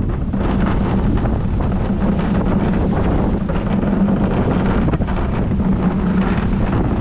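Strong wind buffeting the microphone: a loud, steady, rumbling rush, with a low hum that swells and fades a few times.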